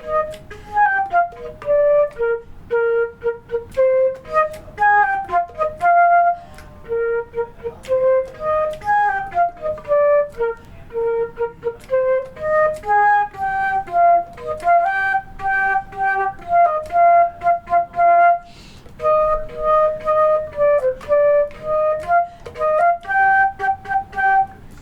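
Solo concert flute playing a beginner band melody, one note at a time, with short breath gaps, the notes mostly in the instrument's low-middle range. The notes come out as steady eighth notes in places, a rhythm slip that the player admits straight afterwards.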